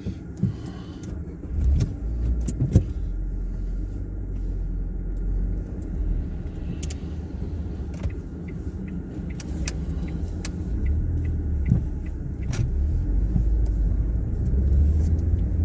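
Mk7 Ford Fiesta being driven, heard from inside the cabin: a steady low rumble of engine and road noise, with a few scattered sharp clicks and knocks.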